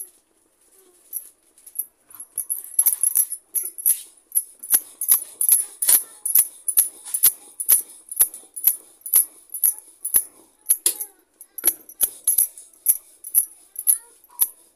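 Glass bangles clinking in a steady rhythm, about two clinks a second, as a paratha is rolled out with a wooden rolling pin on a wooden board, with faint knocks of the pin and board under them. The clinking begins about two seconds in.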